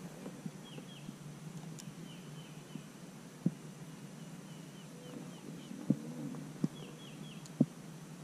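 Four sharp knocks of gear against the kayak, spread through the second half, over runs of short, high, quick bird chirps.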